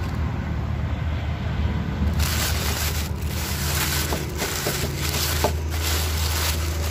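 Packaging being handled and unwrapped, crinkling and rustling, growing louder and busier about two seconds in, over a steady low hum.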